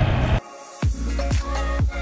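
Motorcycle riding noise cuts off about half a second in. Electronic dance music follows, with a steady kick drum at about two beats a second.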